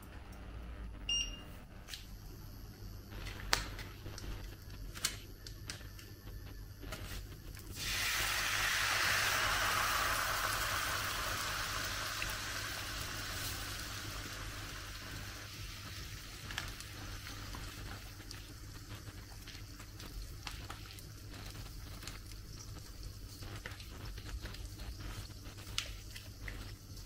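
Food going into a hot pan and sizzling. The sizzle starts suddenly about eight seconds in, loudest at first, and slowly dies down over the following seconds. A few sharp clicks and knocks of utensils come before it.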